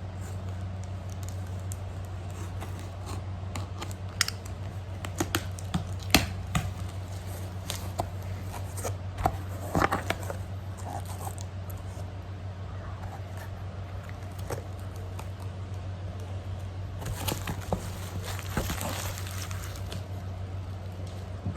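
Packaging being handled and opened: scattered sharp clicks and taps for several seconds, then a stretch of crinkling and tearing of wrapping near the end, over a steady low hum.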